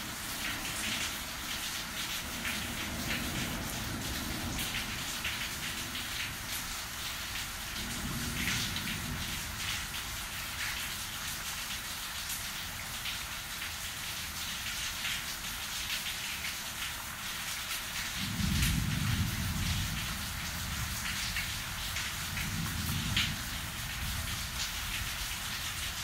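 Steady rain falling in a thunderstorm, a constant hiss with single drop hits sounding through it. Low rumbles of thunder swell and fade several times, the strongest about eighteen seconds in.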